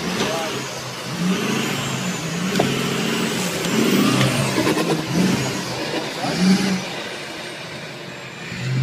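Off-road pickup truck's engine revving hard under load in repeated surges, its pitch rising and falling as it claws up a steep dirt bank.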